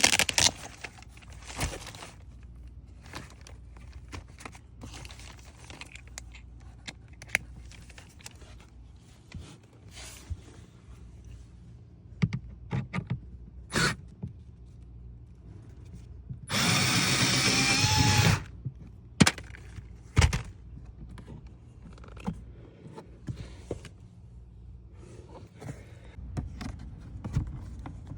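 A power tool, such as a drill or cordless driver, runs steadily for about two seconds in the middle, amid scattered clicks and knocks of tools and parts being handled during spark plug and ignition coil work.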